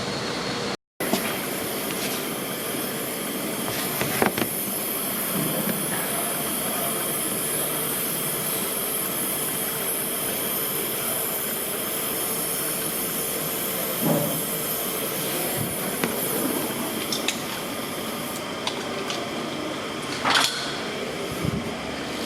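Steady hissing noise, with a few short knocks or clicks: about four seconds in, about fourteen seconds in, and a louder one about twenty seconds in.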